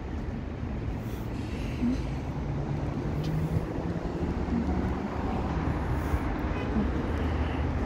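Steady rumble of road traffic, with one vehicle's engine note standing out briefly about two seconds in.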